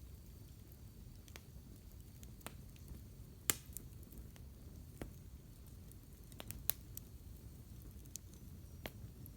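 Wood campfire crackling: scattered sharp pops, the loudest about three and a half seconds in and again near seven seconds, over a low steady rumble.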